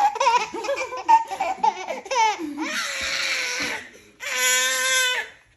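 A baby laughing and babbling, then a toy car's horn honked twice, each honk a steady buzzy beep about a second long.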